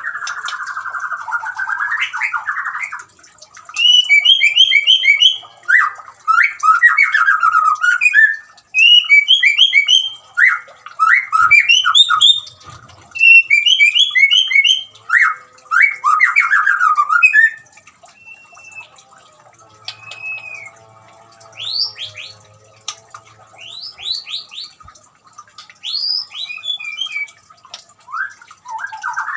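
White-rumped shama (murai batu) singing: loud, rapid runs of varied whistled and chattering phrases for most of the first 17 seconds. Then comes a softer stretch of scattered short whistles and sharp rising notes.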